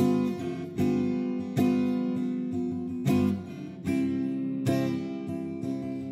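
Background music: guitar strumming chords in a steady rhythm, about one strum a second.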